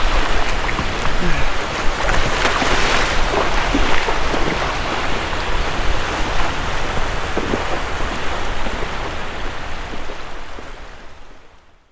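Steady wash of surf breaking on a sandy beach, with a brief burst of splashing about two to three seconds in; the sound fades out near the end.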